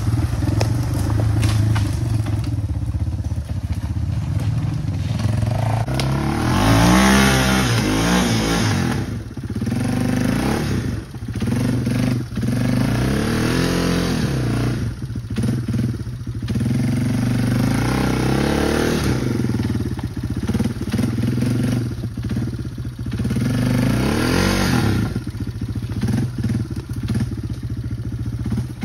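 ATV engine running low and steady, then revving up and down several times as the quad is driven through thick brush.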